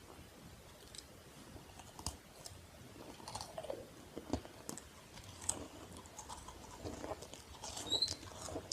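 Close-miked chewing and biting, with irregular crisp clicks and wet mouth sounds.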